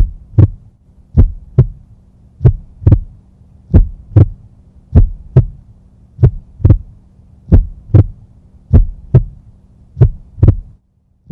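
Heartbeat sound effect: nine slow lub-dub double thumps, about one pair every 1.25 seconds, over a steady low hum, stopping shortly before the end.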